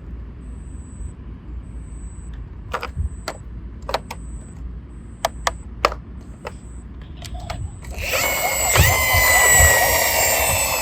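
Plastic toy vehicles being handled, with scattered sharp clicks and knocks and a faint high-pitched tone that comes and goes. About eight seconds in, a much louder rattling, whirring run of plastic lasts about three seconds.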